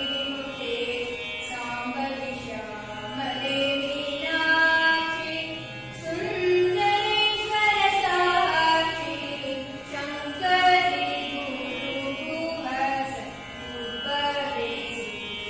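A girl singing a prayer song solo in Carnatic style, holding long notes and gliding between pitches.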